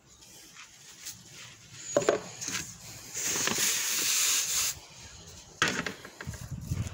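Handling noises from weighing out feed additives: a knock about two seconds in, then about a second and a half of steady rustling hiss, then a few more knocks.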